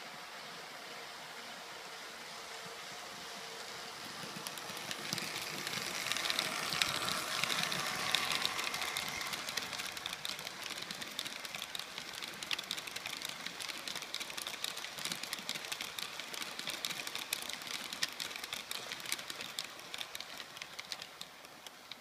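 H0-scale model freight train of tank wagons rolling past on the layout track. A steady rolling noise with many sharp clicks of the wheels over rail joints and points builds up a few seconds in, peaks soon after, and then slowly fades.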